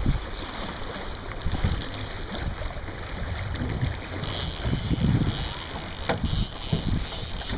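Wind buffeting the microphone aboard a Sunfish sailing dinghy under way, in uneven gusts, with a broad hiss that grows stronger about four seconds in and a few faint clicks.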